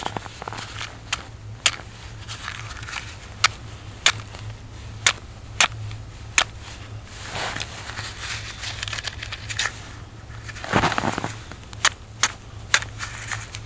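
Damp wooden matches struck against a matchbox and failing to catch: scattered sharp clicks and snaps, with two longer scrapes midway and near the end, the louder one near the end.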